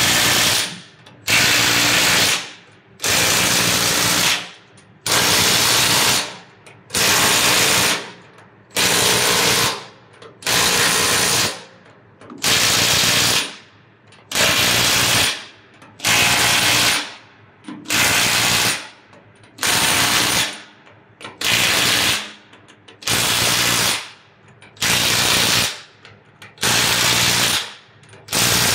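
Cordless impact wrench hammering nuts down one after another on a bolted fresh-water tank manhole cover: a short burst of rattling impacts about every two seconds, each lasting a second or so and winding down as the trigger is released.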